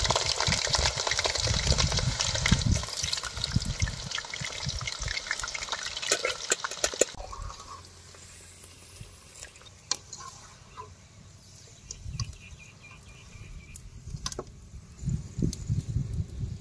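Thick-cut potato fries deep-frying in hot oil in a wide aluminium pan, cooked through, with a dense sizzle that drops off abruptly about halfway through. A wire-mesh spider strainer stirs and lifts them, with scattered metallic clicks and some low thumps.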